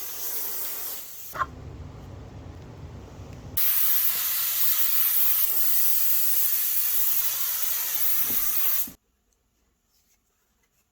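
Aerosol spray can hissing: a spray of about a second and a half, a lower rushing sound, then one long spray of about five seconds that stops abruptly.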